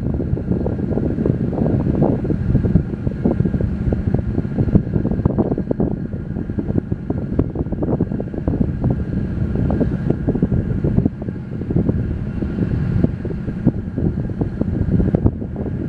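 Wind buffeting the microphone: a heavy, uneven rumble that gusts and drops from moment to moment. Beneath it runs a faint, steady high whine.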